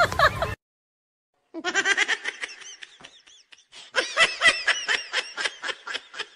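High-pitched laughter in quick repeated giggles. It begins about a second and a half in, after a second of dead silence, and grows denser near the middle.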